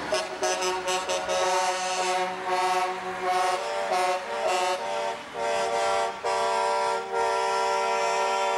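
Truck air horns blowing, several pitches sounding together as a chord: a run of short toots, then longer held blasts in the second half.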